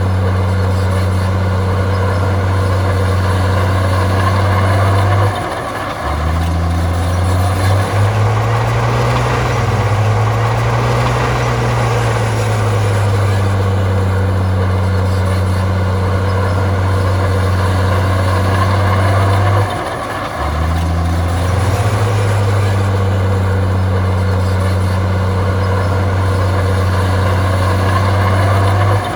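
Komatsu bulldozer's diesel engine running hard. Its note drops briefly twice, about a fifth and two-thirds of the way in, and swells up and back down again about a third of the way in.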